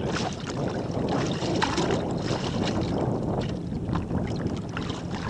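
Wind buffeting the microphone and water lapping against the hull of a bass boat on choppy water, with a few small knocks.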